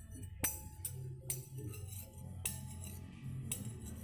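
Background music with four short, sharp clinks of a spoon against a bowl of bakso.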